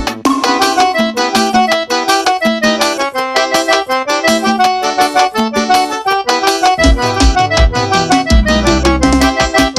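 Instrumental forró backing track with an accordion-voiced lead playing a busy melody. The bass and drums drop out for most of it and come back in about seven seconds in.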